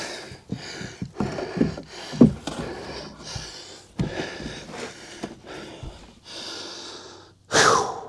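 A man breathing hard in short, noisy gasps and huffs while crouched working in a tight space, with a few brief grunts of effort and a knock about four seconds in; a loud, sharp exhale comes near the end.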